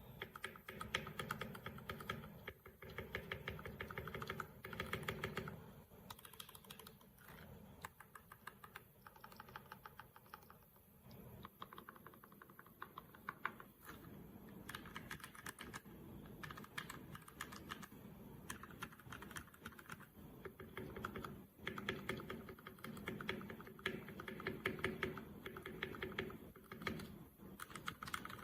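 Fast typing on a Royal Kludge RK61 compact mechanical keyboard: rapid key-switch clicks in runs of several seconds, with short pauses between runs.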